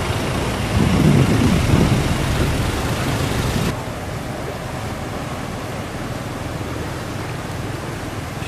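Floodwater rushing and splashing around vehicles wading through a flooded road. There is a low rumble for the first few seconds. After an abrupt cut a little before the middle, only a steady, even rush of water is heard.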